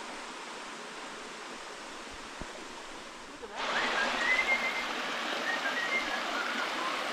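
Steady rush of a small waterfall pouring into a pool. It jumps suddenly louder about three and a half seconds in, with thin high whistled notes over the water.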